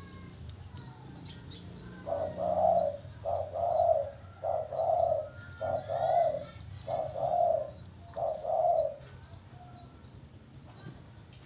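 Spotted dove (terkukur) singing: a run of six loud, evenly spaced coos starting about two seconds in and ending about nine seconds in, with faint chirps of other small birds around it.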